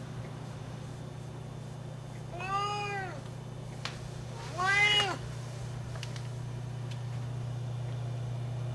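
Siamese-cross cat (Siamese father, Himalayan/Persian mother) giving two loud meows about two seconds apart, each rising and then falling in pitch.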